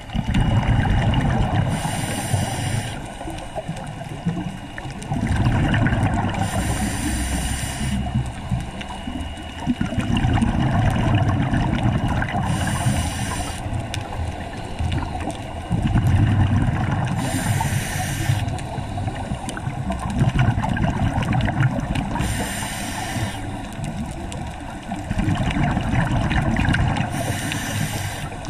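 Scuba diver breathing through a regulator underwater: a short hissing inhale about every five seconds, each followed by a longer, louder rumble of exhaled bubbles, six breaths in all.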